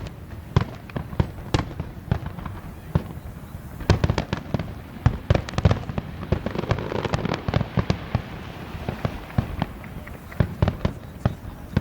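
Fireworks display: rapid, irregular bangs of shells bursting, densest about four to six seconds in and again near the end, with a hissing crackle in between.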